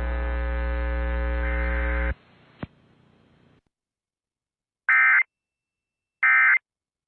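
A steady electrical buzz and hum on the broadcast audio cuts off about two seconds in, followed by a click. Then come two short, identical warbling data bursts about a second and a half apart: Emergency Alert System end-of-message (EOM) tones, which signal the end of the alert.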